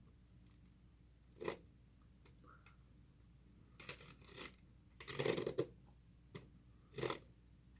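Eating sounds: a handful of short, sharp mouth smacks and clicks while chewing, the loudest cluster about five seconds in.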